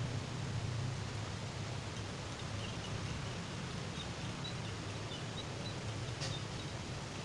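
Steady outdoor background noise with a low hum underneath, a few faint high chirps in the middle, and one sharp click near the end.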